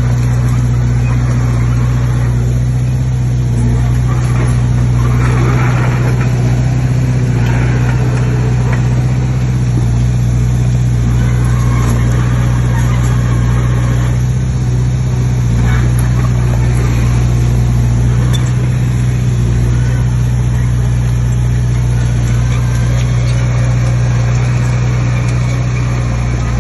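Heavy diesel earthmoving machine's engine running steadily at an even pitch, with a few short bursts of rougher noise over it.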